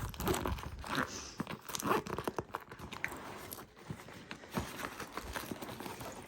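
Irregular crinkling and rustling of small plastic-wrapped packets and toiletries being handled and packed back into a bag pocket, with scattered clicks and taps.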